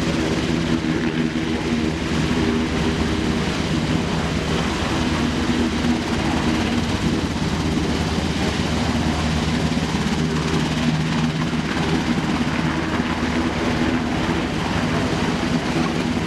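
Sikorsky UH-60M Black Hawk helicopter hovering just above the ground: the steady beat of its main rotor over the drone of its two turboshaft engines.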